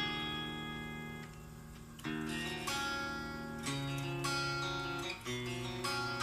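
Greco GP-850 guitar being played unaccompanied: chords and notes picked or strummed and left to ring out, with a new one struck about every second.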